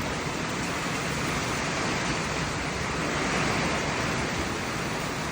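Storm wind rushing through trees as a steady, even roar, with low buffeting from wind hitting the microphone.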